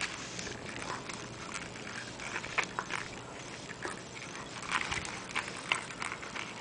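Soft, scattered clicks and rustles from a dog lying close by on a rug: small mouth and body noises, a few to the second, with no barking.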